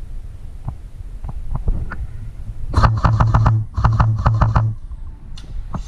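Airsoft electric gun firing three quick full-auto bursts near the middle, rapid clicks over a steady motor buzz, after a few scattered single clicks.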